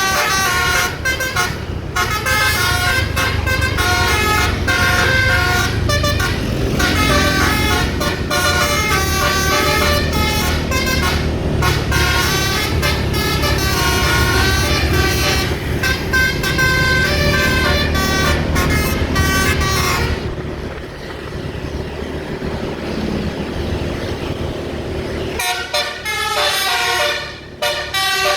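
A bus's basuri telolet musical horn plays a tune of quick stepped tones over and over, with the engine rumbling underneath. About twenty seconds in the horn stops and only steady noise is left for a few seconds. Near the end the horn starts playing again.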